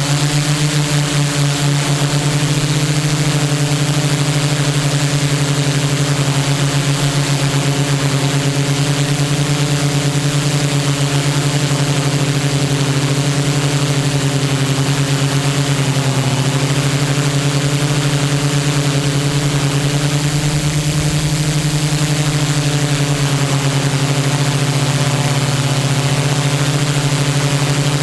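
Quadcopter's four Gartt 3508 brushless motors and propellers droning steadily in flight, heard close from the camera on board, with a fine beating in the tone. The pitch dips briefly about halfway through and again near the end.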